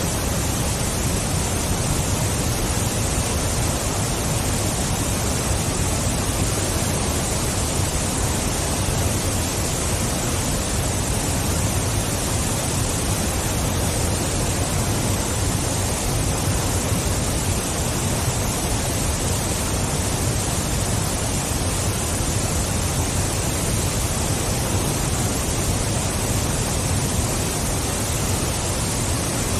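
Waterfall: a steady, dense rush of falling water with a deep low rumble underneath, unchanging throughout.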